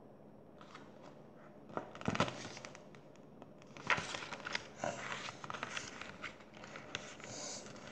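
Paper pages of a picture book being turned and handled: rustling with light flaps and taps, loudest about two seconds in and again from about four seconds.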